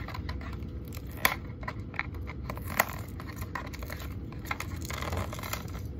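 Small cardboard box being handled and opened by hand: rustling and scraping, with a few sharp clicks, the loudest a little over a second in and another near three seconds.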